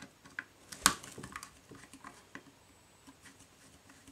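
Small metallic clicks and scrapes of a long thin screwdriver and pliers working the screw and nut of a wire clamp on an instrument's metal case, with one sharper click about a second in and a run of lighter ticks after it.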